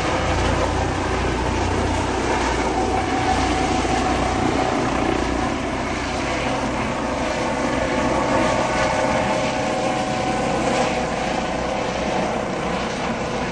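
Helicopter's rotor and turbine engine running steadily as it departs. The deep low rumble drops away about five seconds in, while a higher whine and rush continue.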